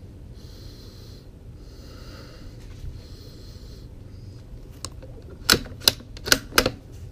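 Bolt of a Savage MKII FV-SR .22LR bolt-action rifle being cycled for a dry fire: a quick series of five sharp metallic clicks about five seconds in, after a few seconds of soft hiss.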